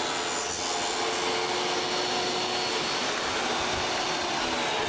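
Table saw with a single blade running and cutting a shallow groove along a plywood board, a steady whine with the rasp of the blade in the wood.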